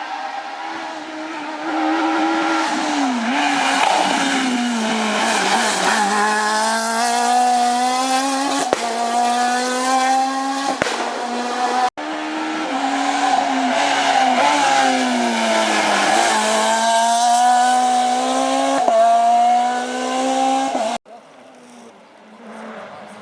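Renault Clio S1600 rally car's naturally aspirated 1.6-litre four-cylinder engine at full throttle. The revs climb hard and drop sharply again and again as it shifts and brakes, in two runs joined by a sudden cut about halfway through. Near the end the sound cuts to a much quieter stretch.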